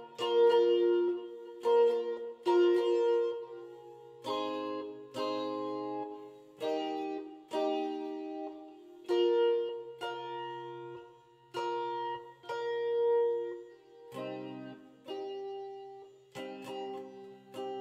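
Stratocaster-style electric guitar playing clean, undistorted picked chords. Each chord is struck and left to ring and fade, about one a second.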